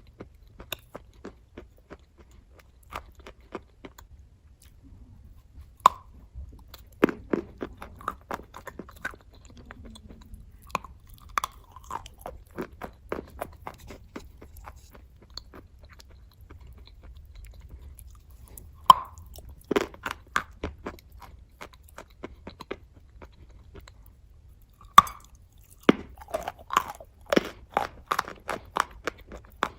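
White chalk dipped in red clay paste being bitten and chewed. Three loud snapping bites, each followed by a run of crisp crunching chews.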